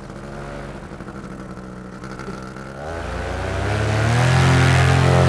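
Blackhawk paramotor engine running at low throttle, then revving up sharply about three seconds in and holding a loud, steady full-power pitch for takeoff.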